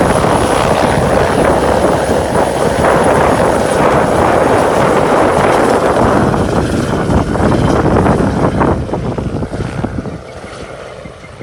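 Helicopter rotor and engine noise close by, loud and steady, then fading over the last couple of seconds as the helicopter moves away.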